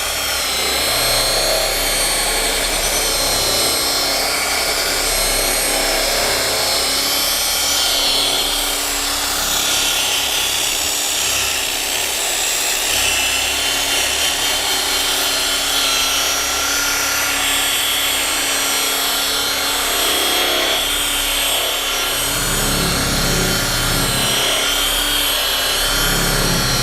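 Rotary polisher running steadily, its pad rubbing compound across old single-stage car paint in the cutting stage, a motor whine over a steady rubbing noise that shifts a little in pitch as the pad is worked over the panel.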